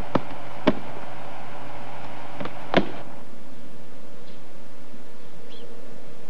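A few sharp hammer blows from roofing work in the first three seconds, then steady tape hiss with a faint hum.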